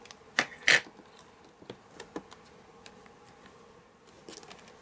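Hard plastic clacks from a Stamparatus stamping platform and ink pad being handled while stamping. Two sharp clacks come within the first second, a few lighter taps follow around two seconds in, and a short cluster of faint clicks comes near the end.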